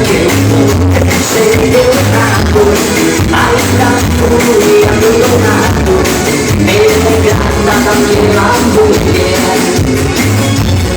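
Loud melody (Pará brega dance music) with a pulsing bass beat and a sung melody, played over a sound system.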